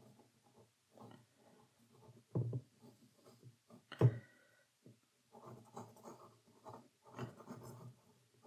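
Pencil sketching on rough watercolour paper: short, irregular scratching strokes as lines are drawn, with two louder knocks about two and a half and four seconds in.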